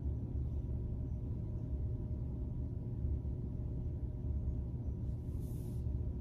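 Steady low hum with a few faint steady tones above it, the background hum of the room or recording equipment. Near the end comes a brief faint scratch of a pen on workbook paper as a dot is marked.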